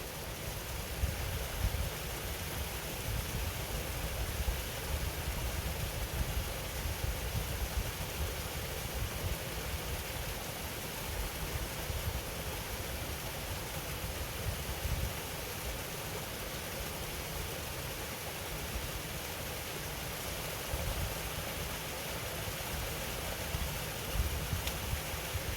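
Waterfall rushing steadily, a continuous even roar of falling water, with wind rumbling low on the microphone in uneven gusts.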